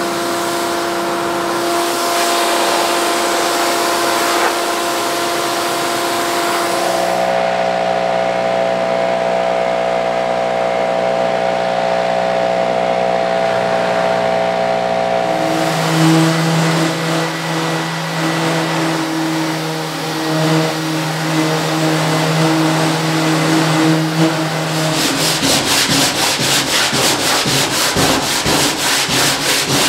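Steady humming tones that change pitch twice, then in the last few seconds quick, even strokes of sandpaper rubbed by hand over the painted steel top of a tool chest, scuffing it before primer.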